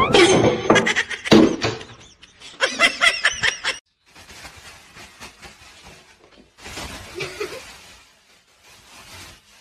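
Loud, high, wavering vocal sounds for the first few seconds. Then a thin plastic shopping bag rustles and crinkles faintly as a cat pushes its head into it.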